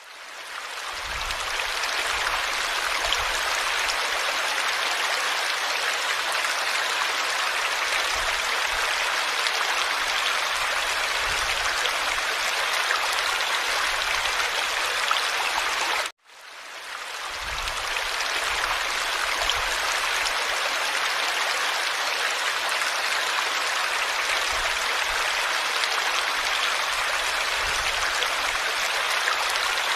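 Steady rush of running water, like a stream. About sixteen seconds in it cuts out for a moment and fades back up, the restart of a looped recording.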